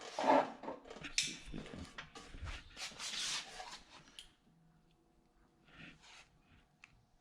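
Irregular scraping and rubbing noises, as of parts being handled or rubbed on the steel mower deck, for about four seconds, then it goes nearly quiet.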